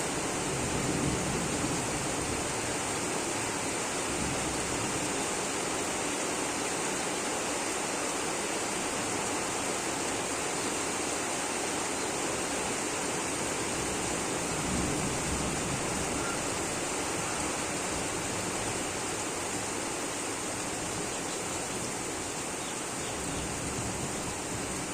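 A sudden rain shower pouring down in a steady, even hiss.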